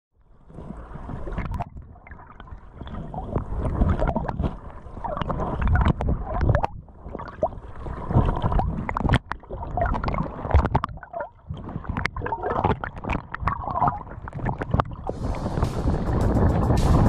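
Water gurgling and sloshing around a submerged action camera in irregular, surging splashes, muffled as heard underwater. About fifteen seconds in, the camera breaks the surface and a steady hiss of air and wind joins the splashing.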